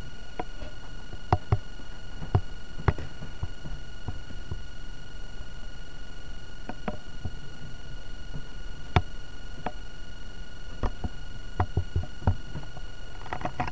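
Handling noise: scattered light clicks and knocks, about a dozen spread irregularly, over a steady electrical hum and hiss.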